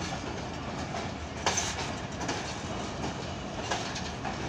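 Pakistan Express passenger coaches rolling slowly past, their wheels clacking over the rail joints. A sharp clank about a second and a half in is the loudest moment, with another near the end.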